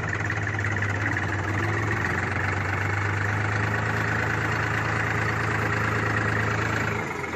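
New Holland TT4.55 tractor's diesel engine running steadily under load as the tractor drives off in high range, first gear. The sound dips briefly near the end.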